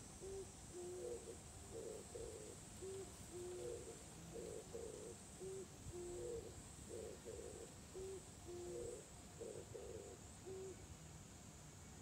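Oriental turtle dove cooing: a low phrase of several notes, each phrase ending on a longer held note, repeated about every two and a half seconds, about five times, the last phrase ending shortly before the end.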